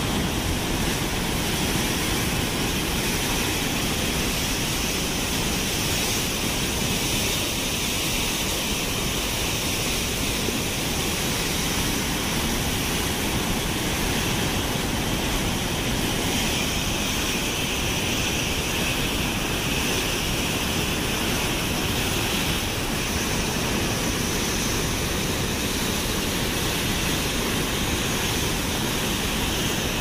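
Water rushing out of a dam's sluice outlets and churning in the stilling basin below: a steady, unbroken rushing noise.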